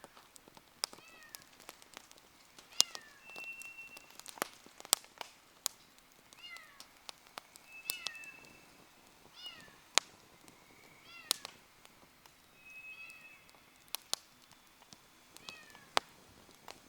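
Campfire wood crackling with frequent sharp pops. Over it come repeated short falling calls from an animal, a few seconds apart, and several brief thin whistles.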